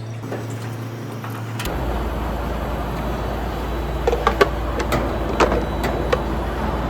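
Truck driving on the road: a steady low rumble of engine and road noise, with several sharp knocks and rattles in the second half.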